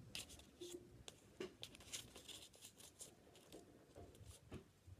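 Scissors cutting folded paper: faint, irregular short snips.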